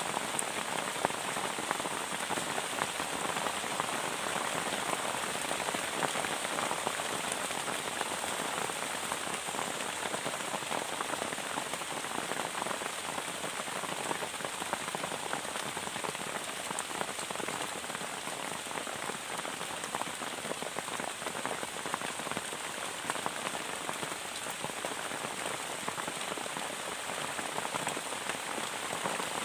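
Heavy rain falling steadily on a plastic tarp shelter, a dense, even patter of drops.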